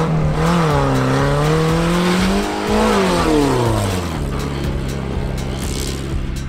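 Truck engine revving hard, its pitch climbing and falling twice, then settling to a steady lower note about four seconds in.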